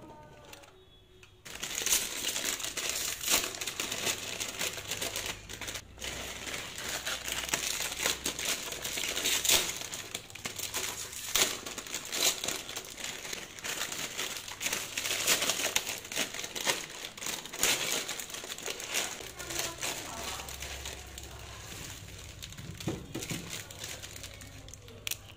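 Foil-lined plastic instant noodle packets crinkling continuously as hands open them and tip the dry noodle blocks out, starting about a second and a half in.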